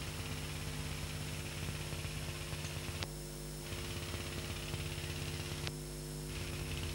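Steady electrical hum and hiss of an old home-movie soundtrack. Two sharp clicks, about three and five and a half seconds in, are each followed by a brief dip in the hiss.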